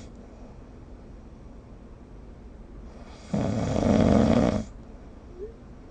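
A sleeping person snoring. The tail of one snore cuts off at the very start, then a single loud snore comes about three seconds in and lasts about a second and a half. A faint short rising whistle follows near the end.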